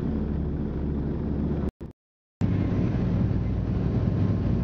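Steady drone of the Lisunov Li-2's two nine-cylinder air-cooled ASh-62IR radial engines and propellers in flight, heard from inside the cabin. The sound cuts out for about half a second about two seconds in, then resumes.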